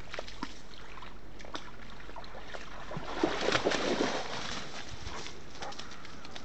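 A dog splashing through a shallow forest pool, with a dense burst of splashing about three seconds in that lasts roughly a second. Scattered light clicks before and after it.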